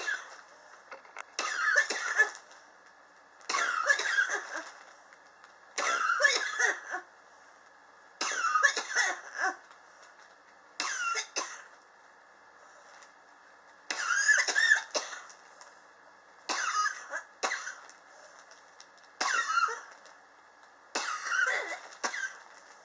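A person coughing over and over, about nine coughing bouts each about a second long, one every two to three seconds. It is a chronic cough that has gone on for years.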